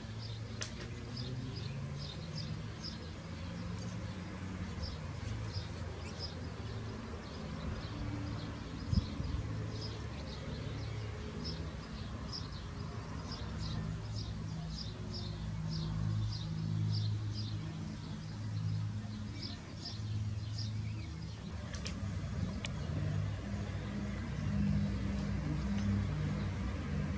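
Outdoor ambience: a bird giving short high chirps, two or three a second, over a low mechanical hum like distant traffic. A single sharp click about nine seconds in.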